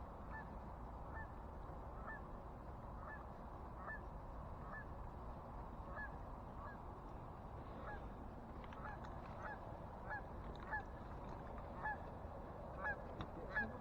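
Canada goose honking: a string of short, faint honks, each with a rising hook, coming more often in the second half.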